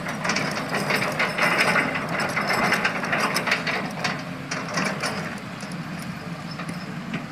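Toy cement mixer truck being rolled, its wheels and gears making a steady rattling, clicking noise.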